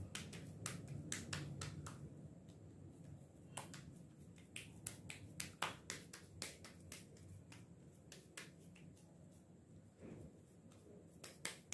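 Hands patting and flattening a patty of raw spiced mutton mince between the palms: faint, irregular soft slaps, several a second.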